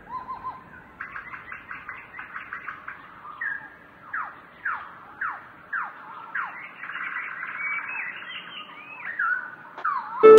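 Birds calling: a fast run of chirps, then a string of short calls, each sliding down in pitch, a little under two a second, then a warbling stretch.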